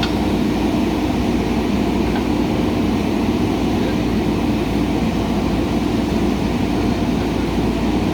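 JCB 3DX backhoe loader's diesel engine running steadily, a constant hum over a low rumble.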